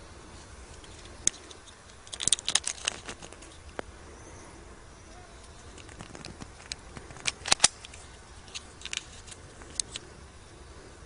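Ekol Agent blank pistol being handled: a run of sharp metallic clicks and rattles, in two main bursts about two seconds in and about seven and a half seconds in, with single lighter clicks between and after.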